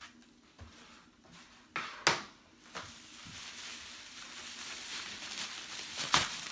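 Packing paper and plastic wrap rustling and crinkling as a wrapped item is taken out of a cardboard box, with sharp clicks about two seconds in and again near the end.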